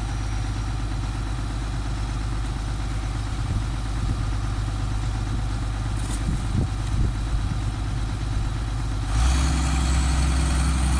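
Caterpillar hydraulic excavator's diesel engine running steadily at low revs. About nine seconds in it gets louder and heavier as it is throttled up for work.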